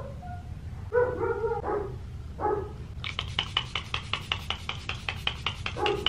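Several short yelps from an animal, a few in the first half and another near the end, with a rapid, even run of sharp clicks, about seven a second, from about halfway.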